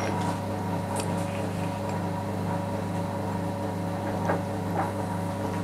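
A steady low machine hum, with a few faint metal clicks as a reamer is clamped in a three-jaw lathe chuck with its key.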